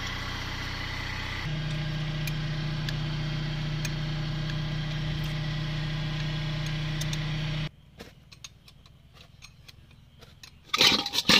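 An engine running steadily, which cuts off abruptly about two-thirds of the way through. Then a few light clicks, and near the end loud clinking of metal gearbox parts being handled.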